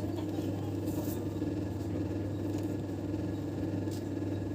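A steady low mechanical hum, with a couple of faint clicks.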